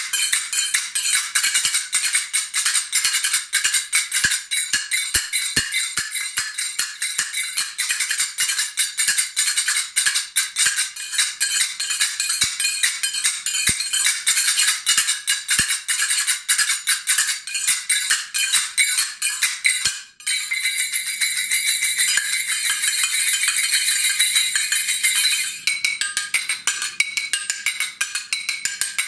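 Brass finger cymbals (Egyptian sagat) struck in a fast, dense rhythmic pattern of bright metallic clicks and rings. About twenty seconds in there is a brief break, then a few seconds of continuous shimmering ringing from a rapid roll before the separate strikes resume.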